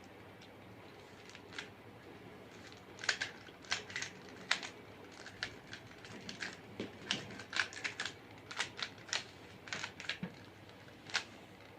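Rubik's Cube faces being turned by hand: an irregular run of short plastic clicks, sparse at first and quicker and denser from about three seconds in, as the white edges are solved.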